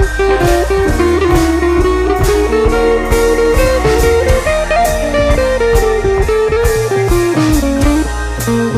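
Instrumental background music: a melody line rising and falling over a steady drum beat and bass.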